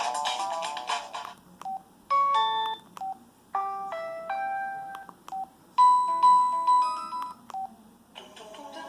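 LG Helix UX310 cell phone playing its preloaded tones: a polyphonic ringtone melody ends about a second and a half in, then three short synthesized chime jingles follow, each set off by a single short beep. Another polyphonic ringtone starts near the end.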